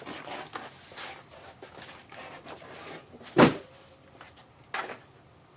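Cardboard box and card packs being handled: soft rustling and shuffling, a heavy thud a little over three seconds in, and a lighter knock near five seconds.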